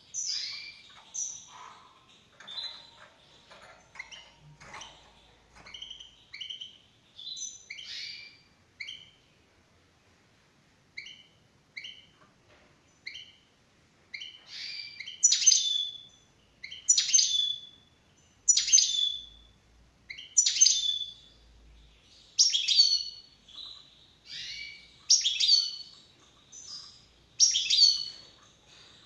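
European goldfinch calling: short high chirps repeated every second or two, growing louder and fuller from about halfway.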